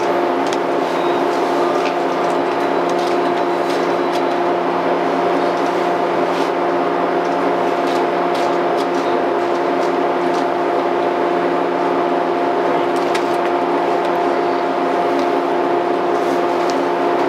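Shinano Railway 115 series electric train standing still with its auxiliary machinery humming steadily, a constant low hum with a steady tone over it, and a few faint clicks.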